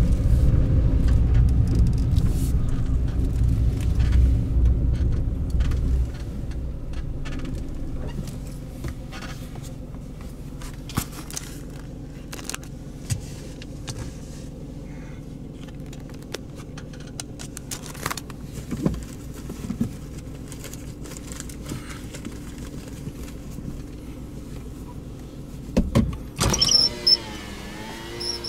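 Car cabin noise: a low engine and road rumble that drops about six seconds in to a quieter steady hum. Scattered small clicks and knocks follow, with a few louder knocks and rattles near the end.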